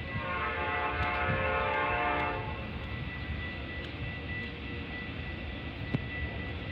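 Horn of an approaching Metra commuter train, sounded in the distance as a long chord that stops about two seconds in. After it, a faint steady rumble remains with a thin high tone.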